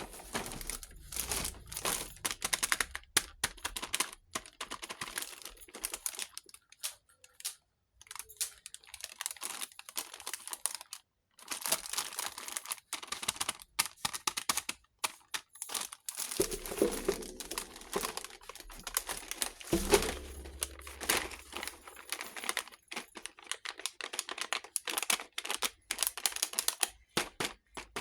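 Plastic packaging crinkling, with many small irregular clicks and taps, as a miniature plastic toy kitchen set is unboxed.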